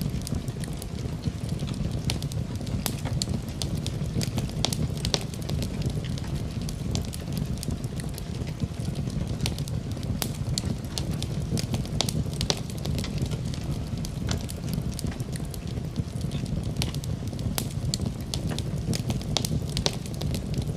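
Wood fire burning in a fireplace, with a steady low rumble of the flames and frequent irregular sharp crackles and pops.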